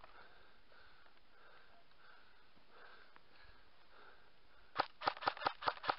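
Faint sniffing close to the microphone, then near the end a quick string of about eight sharp cracks, about six a second: an airsoft rifle fired in rapid single shots.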